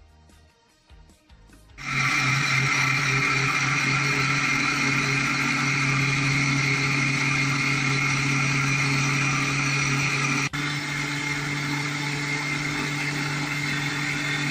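Electric mixer grinder switching on about two seconds in and running steadily at speed, grinding peanut chutney (roasted peanuts, coconut and water) in its steel jar. The run breaks for an instant about ten seconds in, then goes on slightly quieter.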